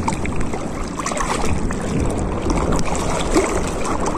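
Shallow seawater sloshing and swishing around the legs of a person wading, a steady rough wash of water with no distinct splashes.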